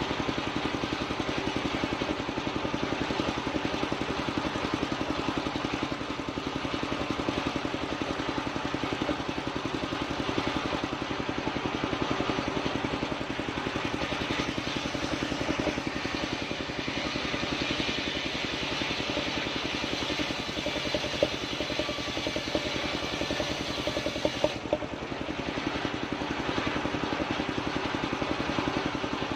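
Engine-driven circular saw of a portable sawmill running steadily, with a couple of short knocks a little before the end.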